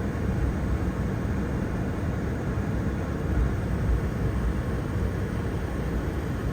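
Steady cockpit noise of a Boeing 747-400 taxiing with its engines at idle: an even, low rumble and rush from the engines and air systems.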